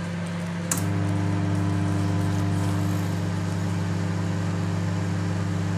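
Midea microwave oven running with a steady low hum. Under a second in there is a sharp click, and the hum steps up louder and fuller.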